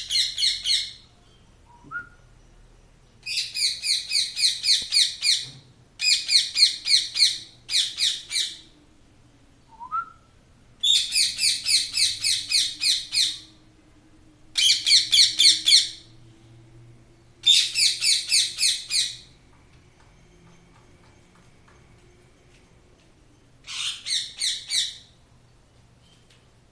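Pet parrot calling in about eight bursts of rapid, repeated notes, each burst lasting one to two seconds with pauses between. Two short, quieter rising chirps come in the gaps.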